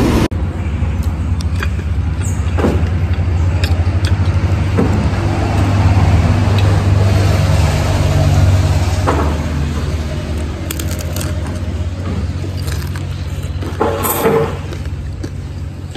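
A steady low motor rumble, swelling for a few seconds and then easing, with a few light clicks over it. A short breathy puff comes near the end.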